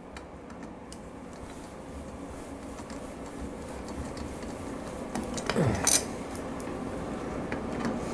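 Hand ratchet and socket working the top-cover bolts of a Harley-Davidson Evolution rocker box: faint, irregular ratchet ticks and small metal clinks, with one sharper clink about six seconds in.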